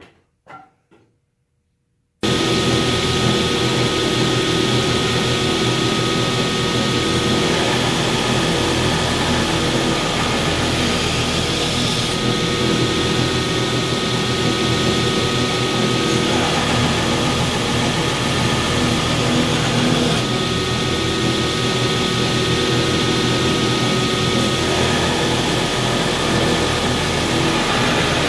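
Belt grinder running with a 36-grit belt as a hardened, heat-treated steel knife blade is ground against it: a loud, steady motor hum under a harsh grinding hiss that shifts a little every few seconds as the blade is worked. The sound cuts in abruptly about two seconds in, after near silence.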